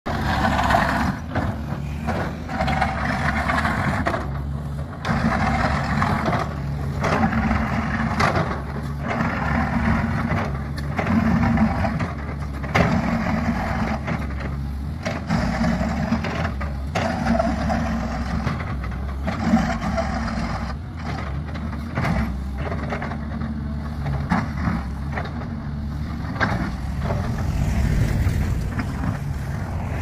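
A Caterpillar hydraulic excavator's diesel engine runs steadily, rising and falling as the bucket teeth scarify an old double bituminous surface treatment (DBST) road surface. Broken bitumen slabs give repeated scraping and sharp cracks and knocks.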